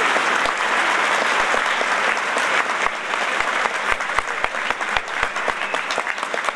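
Audience applauding, a dense wash of clapping that thins out about halfway through into scattered separate claps.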